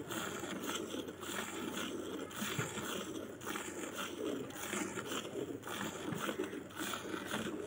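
A cow being milked by hand. Alternating squirts of milk hiss into the frothy milk in an enamel bucket, in an even rhythm of about two squirts a second.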